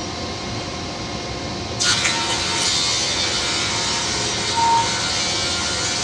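Band sawmill blade cutting through wood, starting suddenly about two seconds in and running steadily after that over a low hum.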